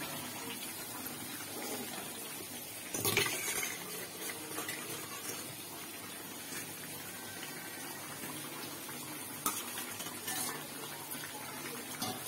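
A slotted steel spoon clinking and scraping against a steel colander and cooking pan a few times, over a steady soft hiss from the curry cooking on the stove.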